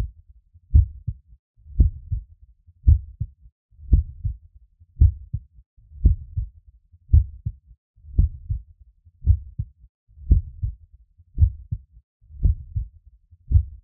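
A human heartbeat recorded through a stethoscope: regular low thuds at about one beat a second, just under 60 a minute, with fainter sounds between the beats.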